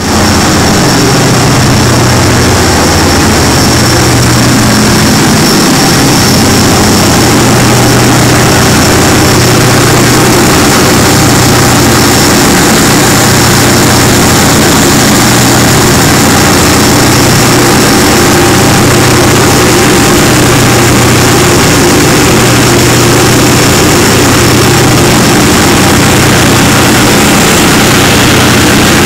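The Nordlicht high-speed catamaran's 5,000 hp engines running at speed: a steady, deafening drone with a low hum, over the rushing hiss of the churning wake.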